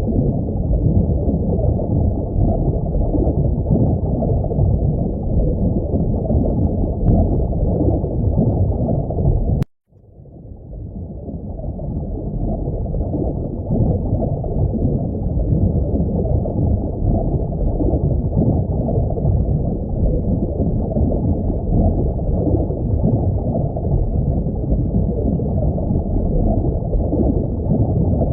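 Aquarium water ambience: a steady, muffled rush of bubbling water. It cuts out suddenly about ten seconds in, then fades back up over a few seconds, as when a sound-effect loop restarts.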